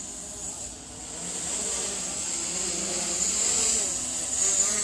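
Quadcopter drone's propellers buzzing with a steady high whine, growing louder about a second and a half in.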